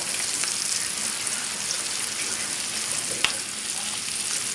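Floured chicken pieces frying in olive oil over a high flame: a steady sizzle with small scattered crackles, and one sharp click about three seconds in.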